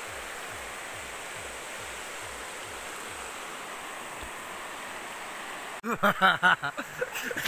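Steady rush of a shallow river flowing over stones. About six seconds in, a sudden louder stretch of voices cuts in.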